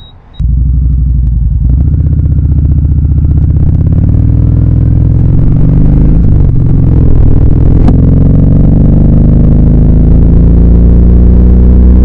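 Kawasaki Vulcan Vaquero's V-twin engine pulling the motorcycle along the road, heard from on board. It cuts in suddenly about half a second in, and its note climbs slowly, dips briefly at a gear change about six seconds in, then climbs again.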